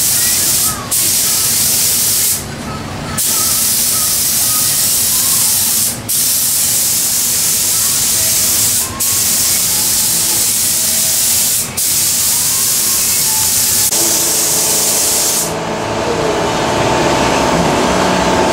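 Compressed-air spray gun hissing as it sprays a light tack coat onto truck panels, cut off briefly about five times as the trigger is let go between passes. The hiss stops near the end, leaving a steady hum.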